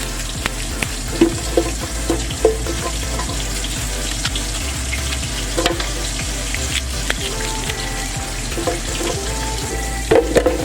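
Oil sizzling steadily in a frying pan, with scattered knocks and clinks of a utensil against the pan, several close together near the end.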